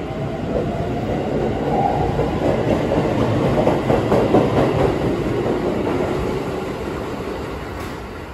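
Keikyu electric train pulling out of the platform: a rising motor whine in the first two seconds over rolling wheel noise, loudest about four seconds in, then fading away as the train leaves.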